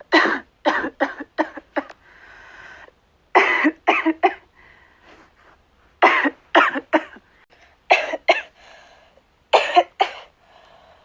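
A girl coughing in repeated fits of three to six quick coughs, with quieter breathing sounds between the fits.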